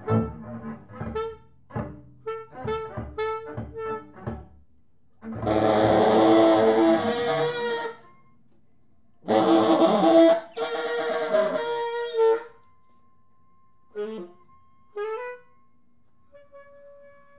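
Tenor saxophone and double bass improvising freely. A run of short, clipped notes comes first, then two loud, harsh held saxophone blasts. A couple of short notes and a faint, steady high held tone follow near the end.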